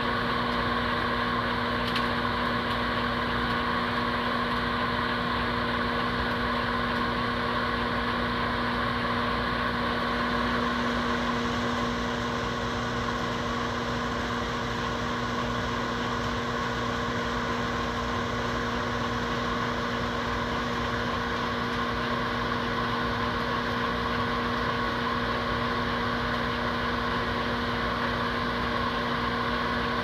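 Microwave oven running: a steady, unchanging hum with a constant low buzzing tone under a noisy whir.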